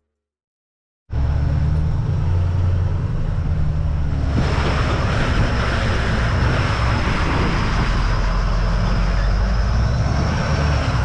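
Plow truck driving: steady engine rumble and road noise, which cut in abruptly after about a second of silence and grow louder about four seconds in, with a thin steady high whine running over them.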